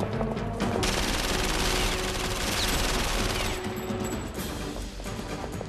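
Rapid, sustained gunfire in a film action scene, starting about a second in and easing off after about three and a half seconds, over a music score.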